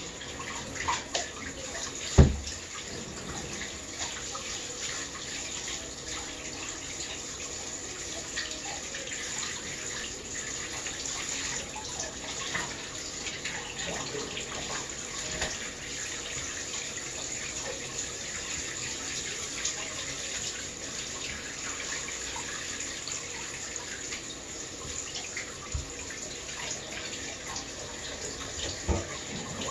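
Handheld shower running into a bathtub while a small dog is washed, with a steady hiss of water splashing. One sharp thump about two seconds in, and two softer knocks near the end.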